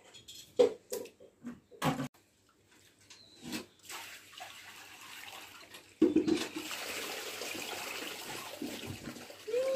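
Small fish being rinsed in steel plates: a few short clinks and knocks of handling over the first seconds, then from about six seconds in a sudden, steady rush of water.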